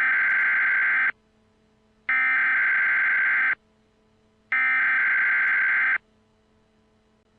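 Emergency Alert System SAME header: three screeching digital data bursts, each about a second and a half long and a second apart. This is the coded header that opens a new alert.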